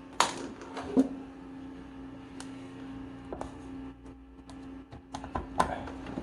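Scattered clicks and knocks of the inside assembly of a Schlage keypad door lock being fitted back onto the door, its little latch lined up and turned; the sharpest knocks come about a second in and near the end. A steady low hum runs underneath.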